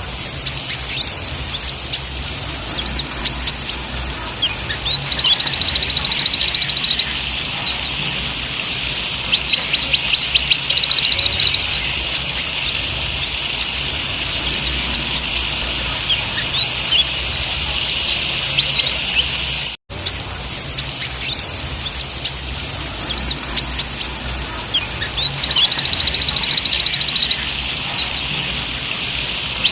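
Kolibri ninja sunbird song: many quick high chirps mixed with rapid, buzzy trilled phrases, repeating over and over. The sound drops out for an instant about twenty seconds in, after which the same sequence starts again as a loop.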